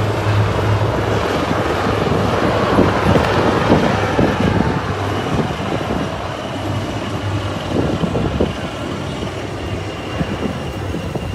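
Display helicopters flying past overhead: a steady rumble of rotor and engine noise that swells a few seconds in and eases off towards the end.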